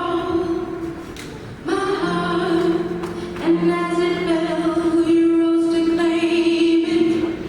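A female solo vocalist singing a slow pop ballad, with a long held note from about two seconds in until shortly before the end.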